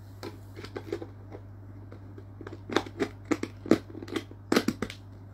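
Irregular small clicks and knocks of hard pieces being handled and fitted together, sparse at first, then a busier, louder run of taps past the middle.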